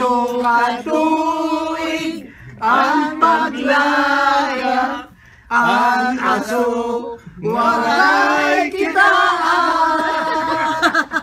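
A small group singing unaccompanied, in held phrases of a few seconds each with brief breaks between them.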